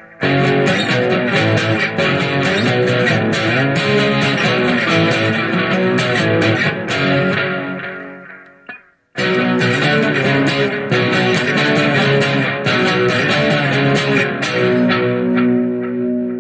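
Electric guitar through an overdriven Marshall amp with chorus and digital delay pedals, picked chords and riffs. The playing fades out and stops about eight or nine seconds in, starts again, and ends on a held chord left ringing.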